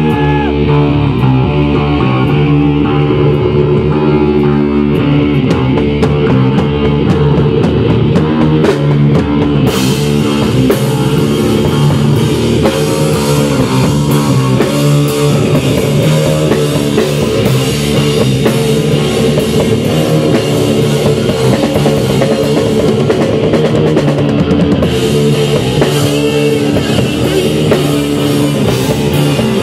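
A rock band playing live on electric guitar, bass guitar and drum kit, with no vocals. The sound gets brighter and fuller about ten seconds in.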